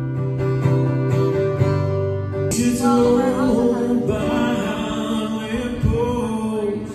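Music: a strummed acoustic guitar, with a singing voice coming in about two and a half seconds in.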